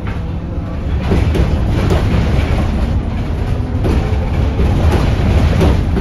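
Cabin noise inside a Foton eBus U12 SC electric bus under way: a steady low rumble from tyres on the road, broken by several short knocks and rattles, about five of them.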